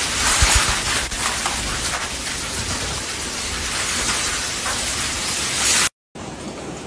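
Heavy rainstorm with strong wind: a loud, steady, dense hiss, with a few low thuds about half a second in. It cuts out abruptly near the end and gives way to a quieter steady rushing noise.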